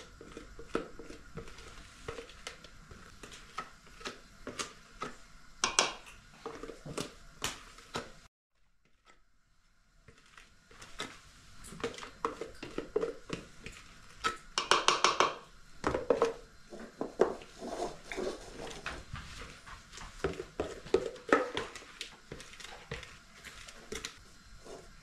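Plastic jug knocking and scraping against a pot of cake batter as its contents are worked out: many small clicks and knocks, with two brief higher-pitched squeaky sounds, a short one about six seconds in and a longer one near the middle. The sound drops out for about a second and a half a third of the way through.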